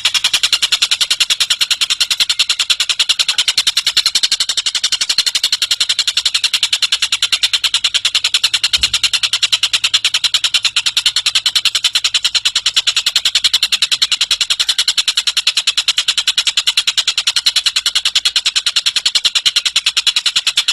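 Song of the tengek cililin bird: a long, unbroken, high-pitched trill of very rapid, evenly repeated notes.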